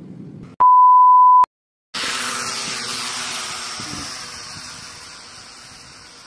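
A loud, steady electronic beep lasting just under a second, followed by a brief silence. Then the S162 toy quadcopter's small motors and propellers whir, fading as the drone flies off and climbs.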